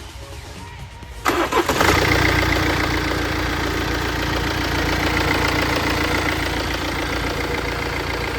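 BMW F48 engine cranking briefly and catching about a second in, then idling steadily.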